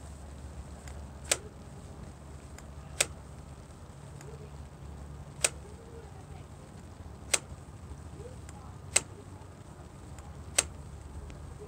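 1997 Suzuki Marauder's throttle twisted open and let go six times, with a sharp click each time the throttle snaps back shut, about every two seconds, over a low steady hum. This is a test of the throttle return on newly installed carburetors and cables.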